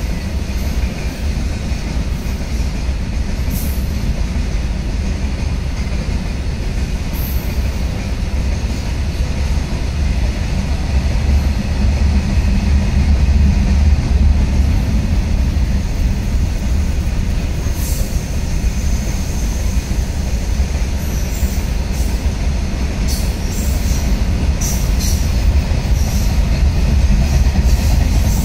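Freight train of open-top box wagons rolling steadily past: a continuous low rumble of wheels on rail, swelling about halfway through and again near the end, with short high squeaks from the wheels now and then.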